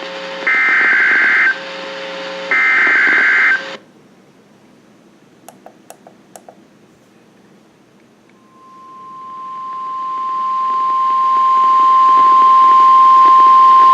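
Emergency Alert System SAME header on NOAA Weather Radio: two bursts of buzzy digital data tones, each about a second long. After a pause with a few faint clicks, the steady single-pitch weather radio alert tone starts about eight seconds in and swells louder, signalling the warning that follows.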